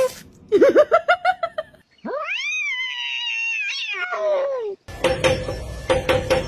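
Domestic cat vocalising: a quick run of short chirping calls, then one long drawn-out yowling meow that rises, holds and falls away. Near the end it cuts to a run of rapid, even clicking over a steady hum.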